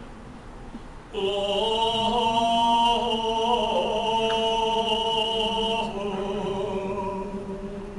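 A man's solo chanting voice. After a short pause it takes up one long held line about a second in, wavering briefly partway through and dropping a little in level near the end.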